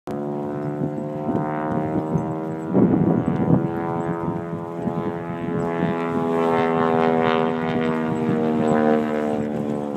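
A vehicle engine running with a steady droning hum, its pitch slowly creeping up as it comes closer. A brief cluster of knocks and clatter comes about three seconds in.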